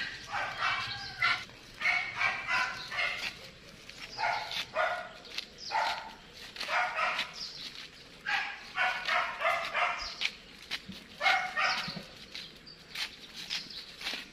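Repeated short animal calls, coming one or two a second in runs with brief pauses between.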